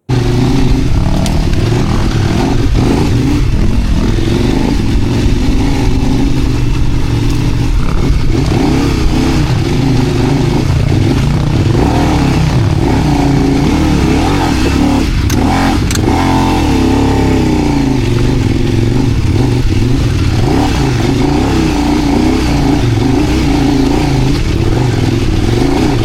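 Kove 800X Rally motorcycle engine running under way, its pitch rising and falling as the revs change, with a steady rush of wind and road noise.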